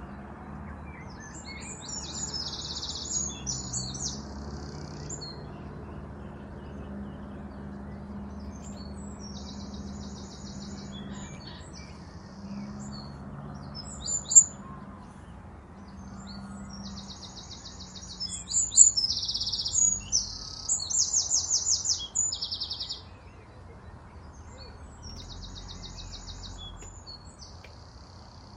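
Small birds singing and chirping, with repeated phrases of short rapid trills, loudest about two-thirds of the way through, over a faint low steady hum.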